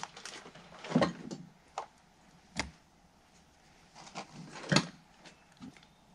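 A series of separate knocks and clunks, about six of them at uneven spacing, the loudest about a second in and just before five seconds in, like objects being moved and set down.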